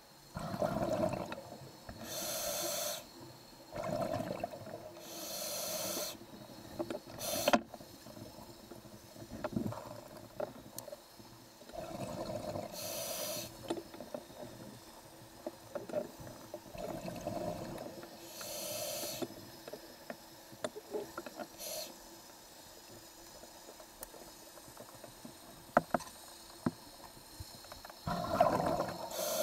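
Scuba diver breathing through a regulator underwater: the hiss of each inhalation and the rumbling burble of exhaled bubbles, a breath every few seconds, with small clicks and knocks in between.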